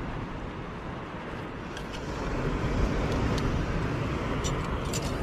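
Wind buffeting the microphone on an exposed clifftop, a steady low rumble that grows louder about two seconds in, with a few faint ticks.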